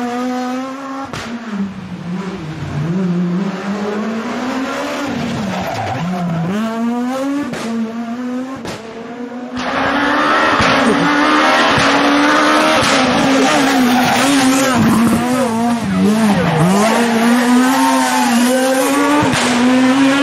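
Renault Clio S1600 rally car's 1.6-litre naturally aspirated four-cylinder engine at racing pace: revs climb through the gears and drop again under braking, over and over. About halfway through, the sound turns suddenly louder and harsher.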